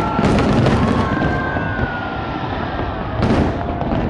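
A fireworks display: aerial shells booming and crackling continuously, with a thin whistling in the first half and a strong burst about three seconds in.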